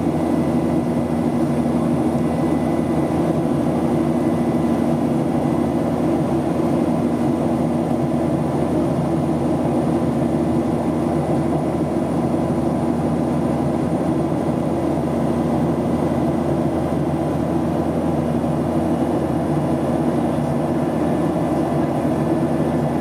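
Steady cabin noise inside an airliner climbing after takeoff: an even roar of engines and rushing air, with a steady low hum and a faint higher whine running through it.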